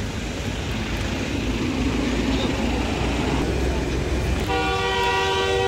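Road traffic running by with a low rumble, and a vehicle horn sounding one steady held note near the end.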